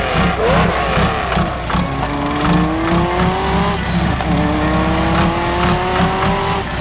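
A vehicle engine sound revving up, rising slowly in pitch twice, over a fast, steady beat of background music.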